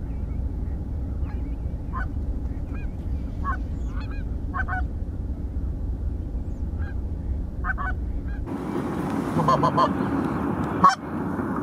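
Canada geese honking in short, scattered calls over a low, steady rumble. About two-thirds of the way through, the honking comes louder and in quicker succession, and near the end there is a single sharp bang.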